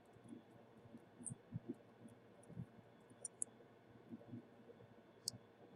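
Near silence with a few faint, sharp ticks and soft low taps scattered through it, the clearest tick near the end.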